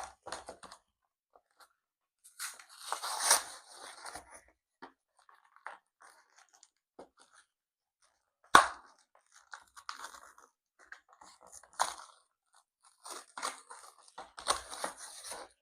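Product packaging being torn and crinkled open by hand in irregular bursts, with one sharp snap a little past halfway that is the loudest sound.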